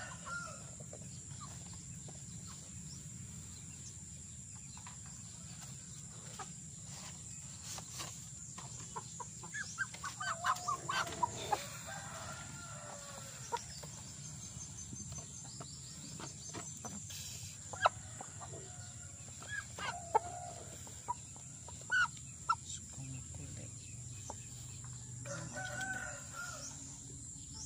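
Domestic chickens clucking and a rooster crowing at intervals, with a few sharp taps in between.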